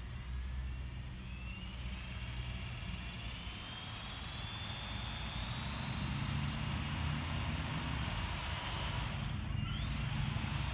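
Robbe Blue Arrow XL electric RC helicopter spinning up on the ground for takeoff: a motor whine rising steadily in pitch over several seconds, over a low rotor thrum that grows slowly louder.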